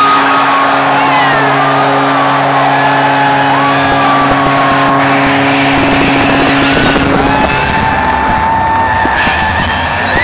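Arena crowd cheering, whooping and whistling for a home-team goal, with the arena's goal horn sounding one long, steady low blast over it that stops about seven seconds in; the cheering carries on after it.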